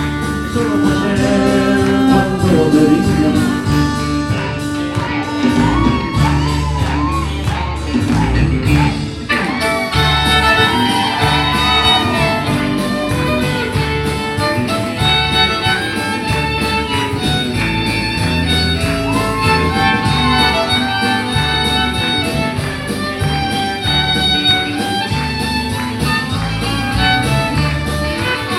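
Live country band playing an instrumental passage, the fiddle prominent over electric guitar, bass guitar and drums.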